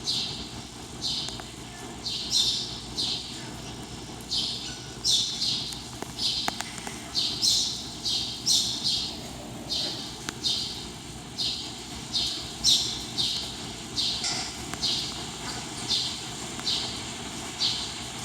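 An animal's short, sharp, high-pitched call repeated steadily, about three calls every two seconds, over a low steady hum.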